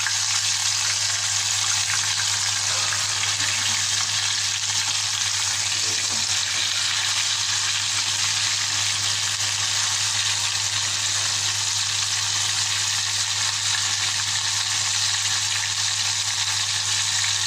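Flour-breaded chicken pieces deep-frying in hot oil in a small saucepan: a steady sizzle, with a low steady hum underneath.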